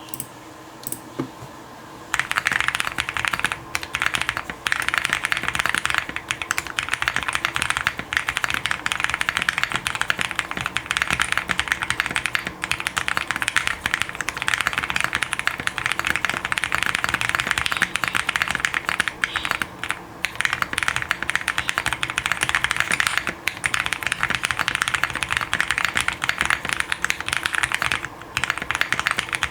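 Fast typing on an Owlab Link65 custom mechanical keyboard: lubed, filmed Zealios V2 tactile switches on an FR4 plate with plate foam and PE foam. A dense, steady stream of keystrokes starts about two seconds in, broken by a few brief pauses.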